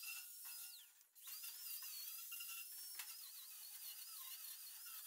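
Angle grinder whining as its disc is worked against the topper's steel deck, the pitch wavering with the load. About a second in it winds down briefly, then spins straight back up.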